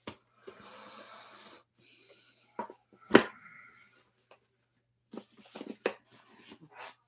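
Boxed knives and their packaging handled on a desk: a soft hiss lasting about a second near the start, a sharp knock just after three seconds as something is set down, then light clicks and taps.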